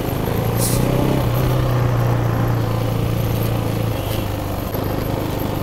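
Motorcycle engine running steadily, heard from on the bike itself. Its low note grows stronger about a second in and eases off about four seconds in, with a short click about half a second in.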